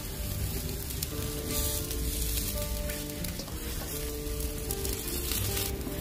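Sardines sizzling and crackling on a charcoal grill, a steady hiss with small pops. Soft background music with held notes plays over it.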